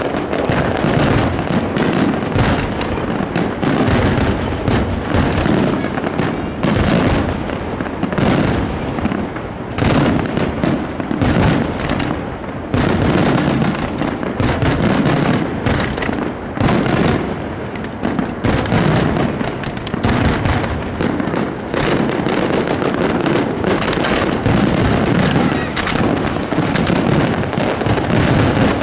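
Aerial fireworks shells bursting overhead at close range in a dense, continuous barrage, many bursts in quick succession.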